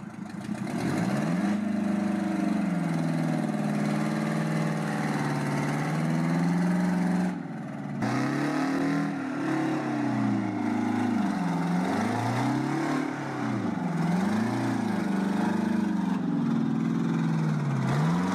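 Heavy timber truck's diesel engine labouring under an overloaded load, its revs climbing and falling again and again as it struggles to move. The engine eases off briefly about halfway through.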